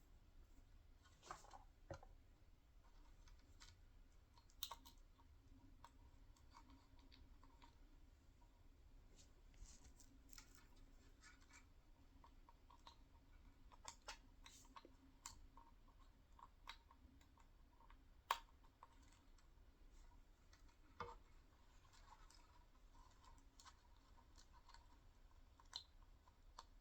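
Near silence with scattered faint clicks and taps, the small handling noises of soldering wires onto a car's control module, over a low steady hum.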